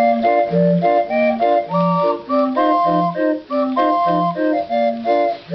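Hand-cranked pipe street organ (monkey organ) with 20 wooden pipes playing a lively tune. Short, separated melody notes sound over a bass note that alternates between two pitches.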